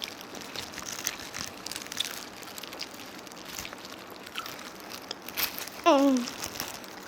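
Crunching and crinkling of fried chicken being bitten and handled, a run of short crisp crackles. About six seconds in, a short vocal sound falling in pitch.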